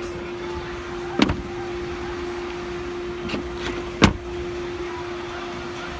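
Rear door of a Tesla Model S being shut: a couple of lighter knocks, then the door closing with a sharp thud about four seconds in, over a steady hum.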